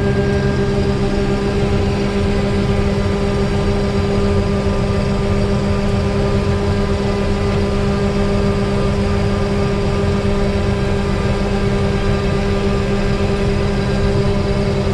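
Combine harvester running steadily while harvesting soybeans, heard from inside the cab: an even, loud drone with a constant hum, the rotary threshing machine working close to the limit of its engine power.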